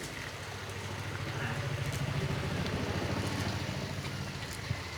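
A small engine running steadily with a rapid low putter, growing louder about two seconds in and easing off a little toward the end. A single sharp click comes near the end.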